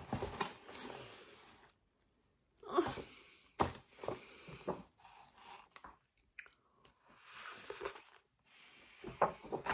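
Sniffling and unsteady breaths from someone tearing up, in several short bursts, mixed with the crinkle and rustle of cardboard packaging and a paper card being handled.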